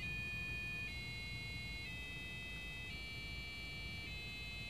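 Piezoelectric buzzer salvaged from an old dial-up modem, driven with a square wave from a PIC microcontroller, playing a run of shrill held beeps. The pitch steps to a new note about once a second. The notes are meant to follow a major scale but are somewhat off, because a software delay function sets their pitch.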